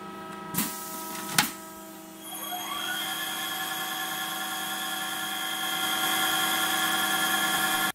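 Loh Spheromatic CNC curve generator starting its radius-milling cycle: over a steady hum, two sharp clicks as the start button is pressed, then about two seconds in a whine rising in pitch as the spindle spins up, settling into a steady whine of the machine running.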